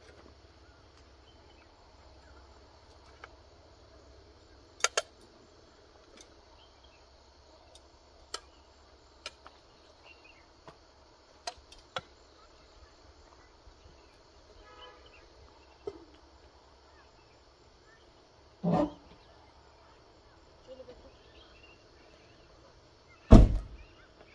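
Scattered light clicks and knocks, then two heavier thumps near the end, the second the loudest, over a faint steady high hiss.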